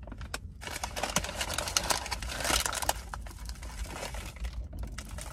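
Paper bag crinkling and rustling in irregular crackles as a piece of donut is pulled off inside it.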